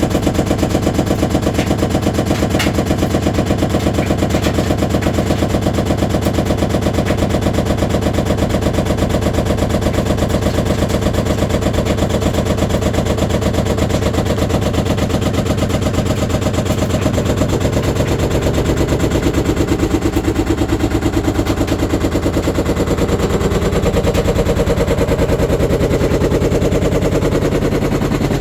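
Samsung VRT washing machine on its spin cycle, its drum making a loud, rapid, even knocking and banging over the hum of the motor. The banging is the sign of a deteriorated drum spider arm, which a repair company found was breaking into small metal pieces.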